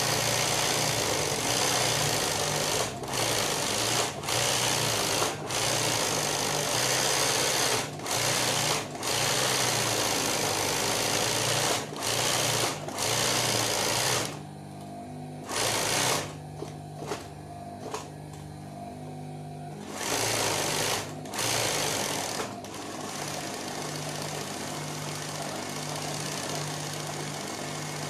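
Industrial sewing machine doing free-motion embroidery, running fast in bursts with short stops as the fabric is moved. Its motor hums steadily through the pauses. The stitching drops away for several seconds about halfway through, then picks up again more quietly toward the end.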